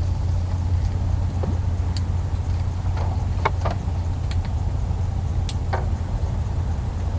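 A steady low drone with a handful of short, light clicks and ticks scattered through the middle.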